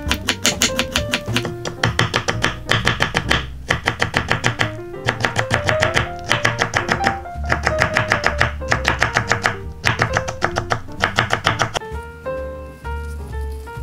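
Chef's knife chopping cucumber on a wooden cutting board: fast, even strokes about seven a second, in runs with short breaks, stopping about twelve seconds in. Light guitar music plays underneath.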